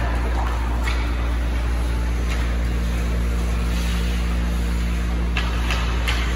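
Ice hockey rink ambience during a youth game: a steady low rumble with a few short scrapes and clacks from skates and sticks on the ice, three of them close together near the end.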